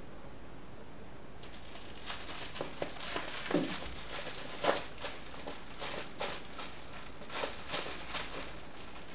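Cat wrestling and kicking a plush toy on a tiled floor: a string of scuffling, rustling and light tapping sounds from its paws, claws and the toy scraping the tiles, starting about a second and a half in.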